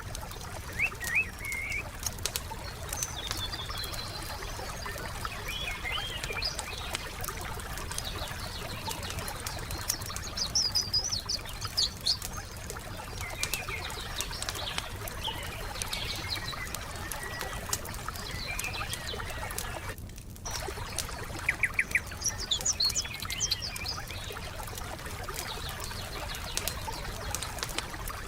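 Campfire crackling with many small pops, while songbirds chirp and trill in short phrases every few seconds over a steady wash of trickling water. The sound drops out briefly about two-thirds of the way through.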